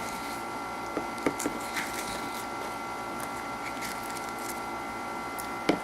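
A few light clicks and taps of small plastic toys and packaging being handled, over a steady high-pitched background hum.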